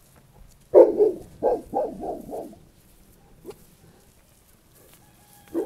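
A dog barking: a quick run of about five barks, the first the loudest, then one more bark near the end.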